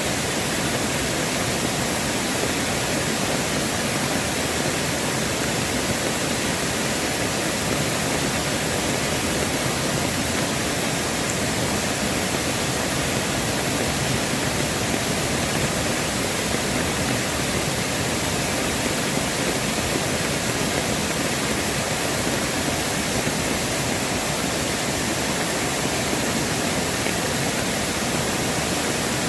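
Mountain valley stream: water rushing steadily, an even unbroken rush.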